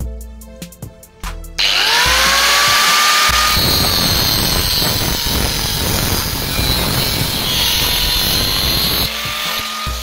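Angle grinder with a thin cut-off disc spinning up with a rising whine about one and a half seconds in, then cutting through a steel flat bar for about five seconds, and winding down near the end. Background music with a beat at the start and end.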